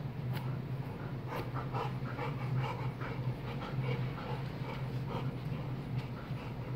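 Two dogs play-wrestling at close quarters, with quick breathing and short snuffling mouth noises coming several times a second, irregularly. A steady low hum runs underneath.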